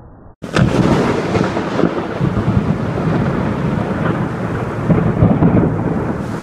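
Loud thunder rumbling over heavy rain. It starts suddenly about half a second in, swells and eases, and breaks off abruptly near the end.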